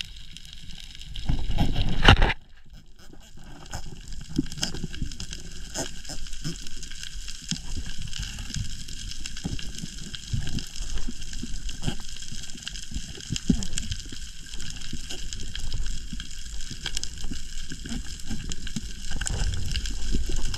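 Underwater sound heard through a diving camera: steady crackling and clicking over a dull wash of moving water, with a loud rushing burst about two seconds in.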